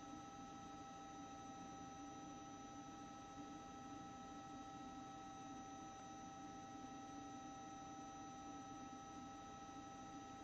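Near silence: a faint steady hum with several thin high tones held unchanged, one of which starts right at the outset.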